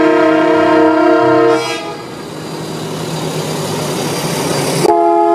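A vehicle air horn sounds a chord of several tones, held for nearly two seconds, as a line of vintage buses drives past. Engine and road noise follow, and the horn sounds again near the end.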